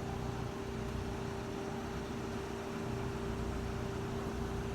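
A heavy diesel engine running steadily at idle, a constant hum with a held tone and no change in speed.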